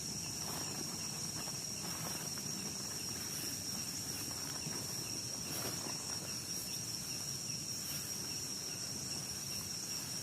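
Night insect chorus in the forest: a steady, unbroken high-pitched trill, with a few faint rustles and ticks.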